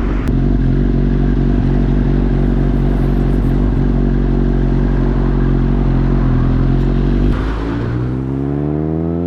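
Suzuki GSX-S1000 inline-four through a LeoVince aftermarket exhaust, holding steady revs under way. About seven seconds in there is a brief break, then the engine pitch climbs steadily as the bike accelerates.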